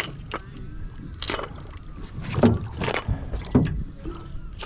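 A large catfish hooked on a jug line thrashing at the surface beside the boat: a handful of irregular splashes, about five in the space of a few seconds.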